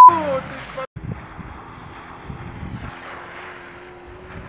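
A loud censor bleep ends right at the start. About a second in, after a brief dropout, comes wind on the microphone with the faint, low running of distant off-road vehicle engines, and a steady engine drone sets in about three seconds in.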